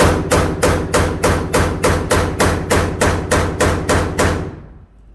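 A rapid, even series of about fourteen sharp bangs, roughly three a second, each with a short ring, stopping shortly before the end.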